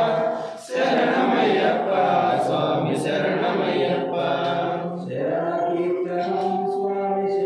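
Male voices chanting an Ayyappa devotional song (bhajan) together in a steady sung line, breaking off briefly about half a second in and dipping again around five seconds.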